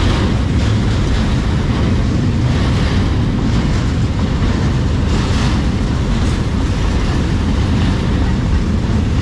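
Steady, loud low rumble of a moving vehicle with wind noise on the microphone.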